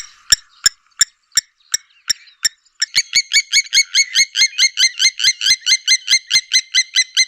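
Blacksmith lapwing calling: sharp, metallic 'tink' notes like a hammer striking an anvil. The notes come a few a second at first. From about three seconds in they run together into a fast, ringing series of about five a second.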